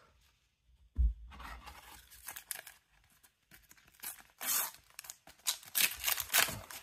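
Paper sticker packet being torn open and its wrapper crinkled: a soft thump about a second in, then a run of irregular sharp tearing and rustling strokes, busiest in the second half.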